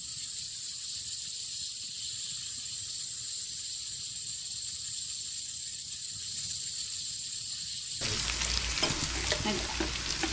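Pork belly and other meat sizzling on an electric grill pan, a steady high hiss. From about eight seconds in, it grows louder and sharp clinks and clattering join in as tongs work the meat.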